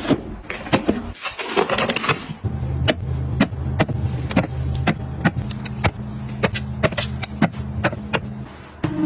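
Kitchen items being handled and set down, making a string of sharp clicks and taps. A low, steady mechanical hum joins them about two and a half seconds in and cuts off near the end.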